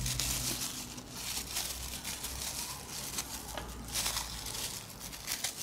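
Thin plastic bag crinkling and rustling as it is handled and pushed aside, in short irregular rustles.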